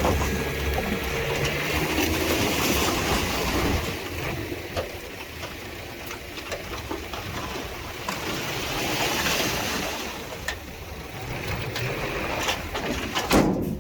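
Heavy earthmoving machinery at work: an engine running under a loud, even rushing noise. The engine hum fades about four seconds in, leaving mostly the rushing noise.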